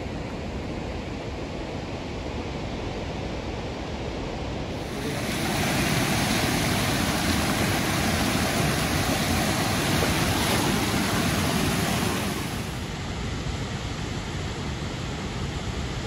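Mountain stream rushing and splashing over rocks, a steady hiss of water that grows louder about five seconds in and falls back about seven seconds later.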